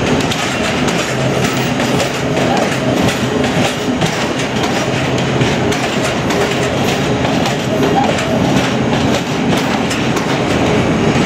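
Passenger train coaches passing close by at speed: a steady rolling rumble, with the wheels clicking over rail joints all the way through.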